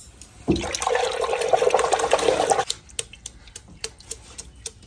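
A hand sloshing through churned buttermilk in a clay pot, gathering the butter into a lump: about two seconds of continuous splashing starting half a second in, then scattered drips and small splashes as the butter is lifted out.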